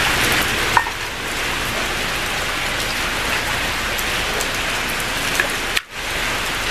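A glass of water poured into a cooking pot: a steady splashing pour, broken off briefly about six seconds in.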